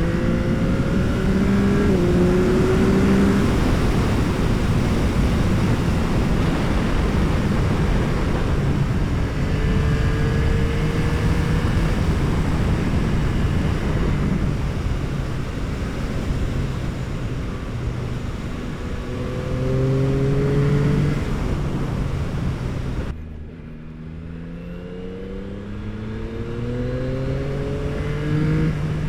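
Yamaha R9's inline three-cylinder engine with an Akrapovic exhaust, ridden hard: the pitch rises in repeated sweeps as it pulls through the gears, under heavy wind rush on the microphone. About 23 seconds in the wind rush drops away suddenly, and the engine pulls up again in several quick rising sweeps.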